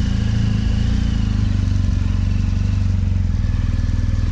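Motorcycle engine running at low revs with a low, steady beat; about three seconds in the pulses become more even as the bike gets under way.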